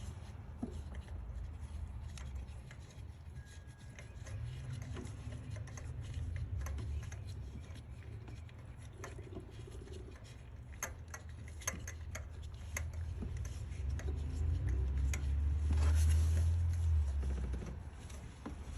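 Irregular small metallic clicks and ticks of a spark plug socket and extension being turned and shifted by hand, threading a new spark plug into place, over a low rumble that swells near the end.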